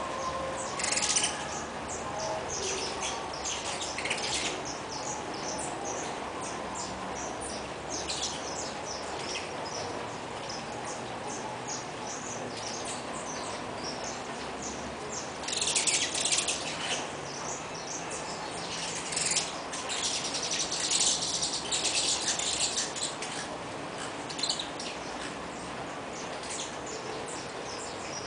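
Saffron finches chirping: many quick, high calls coming in clusters, busiest in the middle and latter part.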